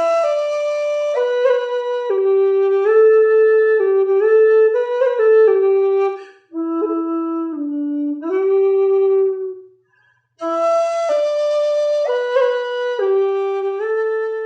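Background music: a solo woodwind playing a slow melody, one note at a time, in phrases with short breaks near the middle and about two-thirds through.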